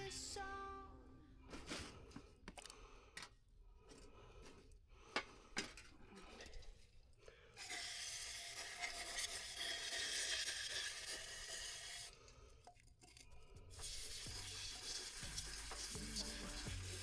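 Scattered sharp clicks and knocks of tools being handled, then two long, steady hisses lasting several seconds each.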